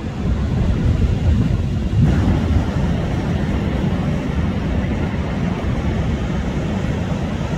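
Waves breaking and surf rushing, a steady roar of noise with a heavy rumble from wind buffeting the microphone, swelling a little about two seconds in.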